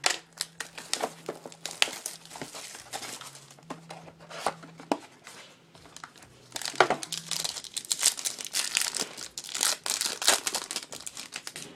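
Crinkling and tearing of a trading-card pack wrapper being ripped open and handled, an irregular run of crackles that grows busiest in the second half.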